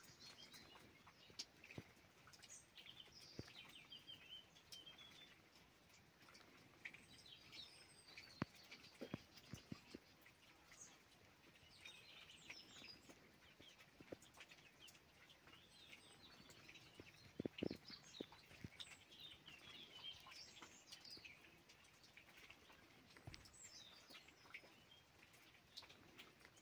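Faint twittering and chirping of small birds, scattered short calls throughout, with a few soft knocks or taps, the loudest about two-thirds of the way through.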